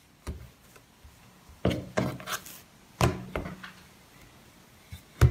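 Wooden rolling pin rolling out dough on a bamboo cutting board: a handful of irregular wooden knocks and clacks as the pin is set down and pushed, with soft rubbing in between.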